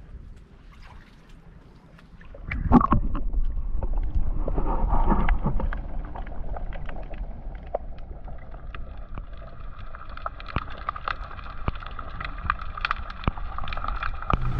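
Boat under way: wind buffeting the microphone and water splashing and gurgling along the hull. The sound starts suddenly about two and a half seconds in, after a quiet opening.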